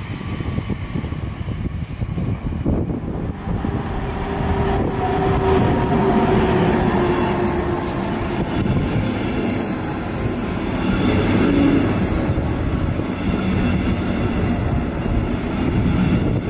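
Red double-deck regional express train running past close alongside the platform: a steady rumble of wheels on rail that grows louder about five seconds in, with a faint whine dropping slightly in pitch for a few seconds.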